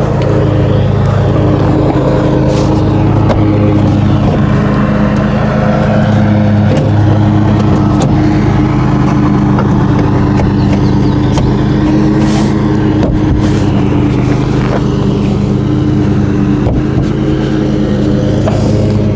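Lawn mower engine running steadily, with a few sharp clicks.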